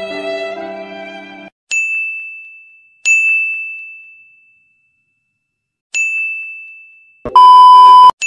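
Bowed-string music cuts off abruptly about a second and a half in. Three bright single dings follow, each struck once and ringing away, and near the end comes a loud steady beep lasting under a second, like a censor bleep.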